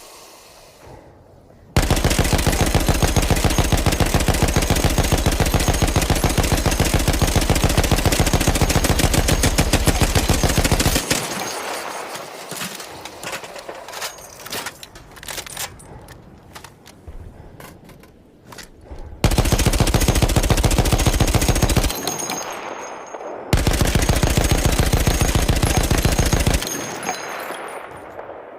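Maxim machine gun firing fully automatic in three bursts: a long one of about nine seconds, then two of about three seconds each. Every burst is followed by a fading echo.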